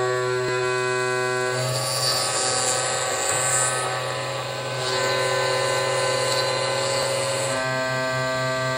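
CNC router spindle driving a 16 mm four-flute end mill through a thick block of PE500 plastic: a steady motor whine with a hiss of cutting. From about a second and a half in until near the end the hiss grows and the whine weakens, then the steadier whine returns.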